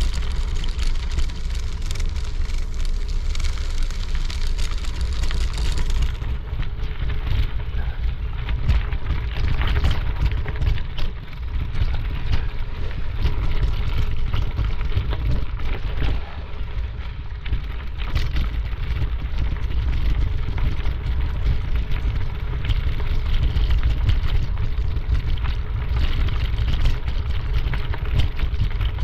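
Wind buffeting a camera microphone carried by a runner, a steady low rumble, with the crunch and knock of running footsteps and the camera jostling on the trail.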